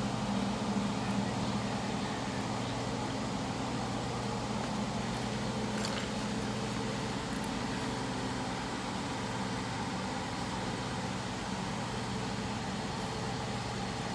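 A steady mechanical hum, holding a few constant low pitches, with a single faint click about six seconds in.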